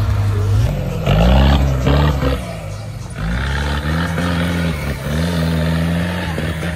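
Off-road 4x4 engine revving: two sharp bursts of revs about one and two seconds in, a brief drop, then held at raised revs with several short rises in pitch.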